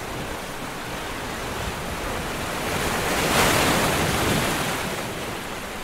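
Ocean surf rushing, one wave swelling to a peak about three and a half seconds in and then easing off.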